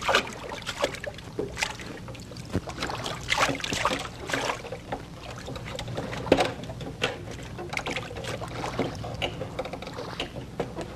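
Water splashing and sloshing around a small wooden boat, with irregular knocks and bumps as people move about in it. A steady low hum runs underneath.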